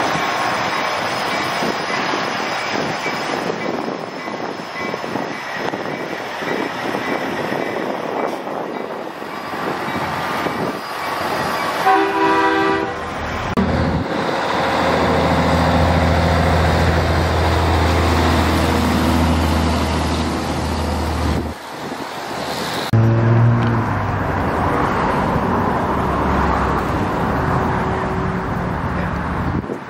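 Semi trucks driving past, diesel engines and tyres making a steady rushing noise. About twelve seconds in a truck horn sounds briefly, followed by a deep, steady engine drone for several seconds that cuts off suddenly.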